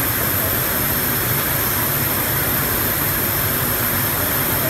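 Steady drone and hiss of factory machinery on an overhead-conveyor finishing line, with a constant low hum underneath and no changes.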